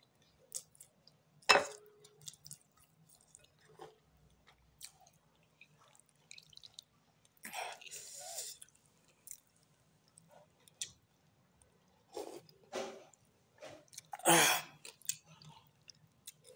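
Close-up eating sounds: wet mouth noises and chewing in short scattered bursts, with crab pepper soup poured from a bowl onto a plate of rice and crab.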